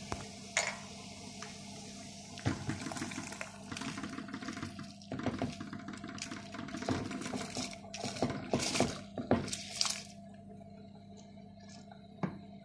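Water boiling in a steel pot, then soaked rice tipped in from a bowl, splashing and sloshing into the boiling water for several seconds before it settles about ten seconds in. A steady low hum runs underneath.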